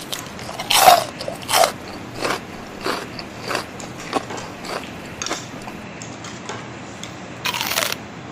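Crunchy chewing of crispy fried chicken, a crunch about every two-thirds of a second, growing fainter, then a longer, louder crunching bite near the end.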